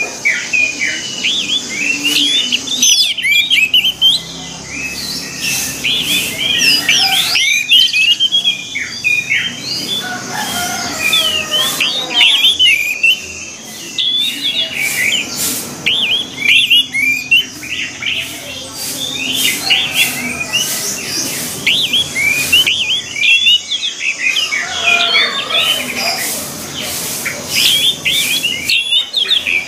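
Orange-headed thrushes singing: a dense, varied song of quick rising and falling whistled notes and chatter, in long runs broken by short pauses every few seconds.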